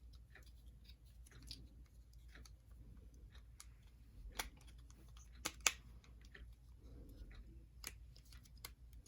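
Faint scattered clicks and taps of small plastic model-locomotive parts being handled and fitted together, with a few sharper clicks a little past the middle.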